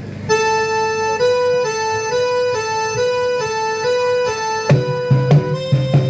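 Electronic keyboard with an organ-like sound alternating between two held notes about twice a second. Near the end a bass line and a beat come in.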